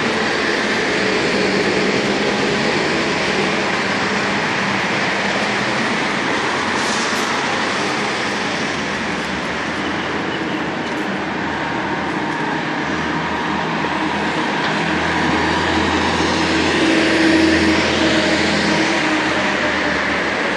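Steady, loud vehicle noise, an even rumble and hiss, with a deeper rumble that swells to a peak a little over three-quarters of the way through.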